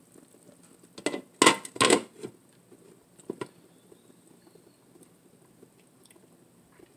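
Lid of an electric skillet being set down on the pan, a few sharp clattering knocks between about one and two seconds in, then a fainter knock a little after three seconds.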